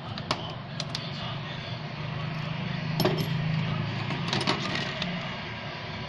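Scattered light metallic clicks and taps of a precision screwdriver and small parts handled on a phone's frame, the sharpest about three seconds in and a quick cluster a little after four seconds, over a low steady hum.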